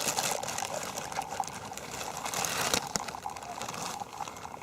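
Steady hiss of hot liquid trickling and bubbling, with many small crackles throughout.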